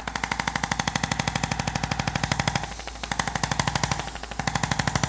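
Handheld electric percussion massager hammering rapidly on the back muscles in an even train of quick pulses, stopping briefly twice, used to loosen tense musculature.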